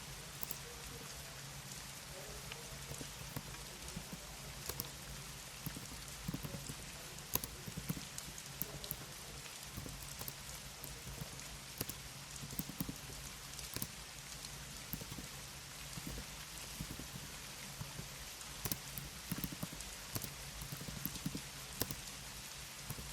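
Computer keyboard typing: irregular sharp key clicks, several a second with short pauses, over a steady low hum and hiss.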